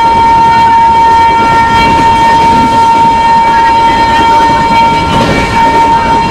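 WAP-7 electric locomotive's horn held in one long unbroken blast at a steady pitch, over the low rumble of the running train.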